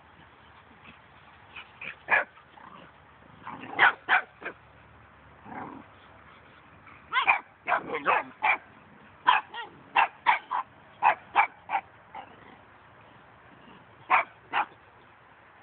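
Dogs and puppies play-fighting, giving short, sharp barks and yips: a few scattered early on, a quick run of them about halfway through, and two more near the end.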